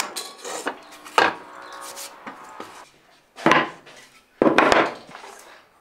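Bench drill press running, its Forstner bit boring a hole into plywood, for the first two and a half seconds. Then solid pieces of wood knocked down onto a wooden workbench, twice.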